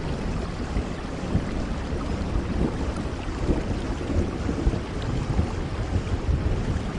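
Steady heavy rain: a dense, unbroken hiss of falling rain with a deep low rumble underneath and many scattered sharper drop ticks.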